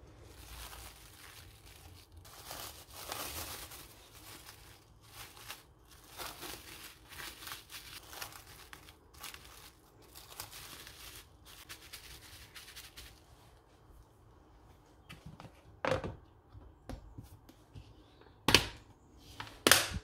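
Plastic cling film crinkling as it is spread and smoothed over a glass dish, followed near the end by the dish's plastic lid being pressed on with a few sharp clicks.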